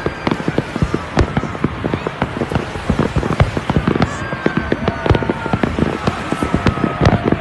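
Fireworks bursting in a rapid, continuous barrage, several loud bangs a second.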